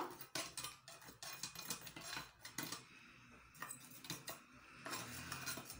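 Metal tongs moving lumps of charcoal around a pot in a clay charcoal brazier: faint, irregular clinks, knocks and scrapes.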